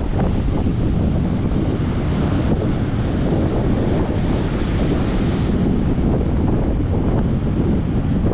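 Strong wind buffeting the microphone over the steady wash of heavy surf.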